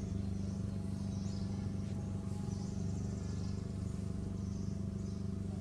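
Outdoor ambience: a steady low mechanical hum, like a running engine, with short high chirping calls repeating over it.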